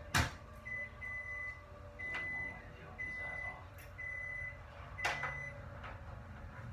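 An electronic beep, one high tone, repeating about once a second with each beep lasting about half a second. A sharp knock comes just after the start, and another about five seconds in.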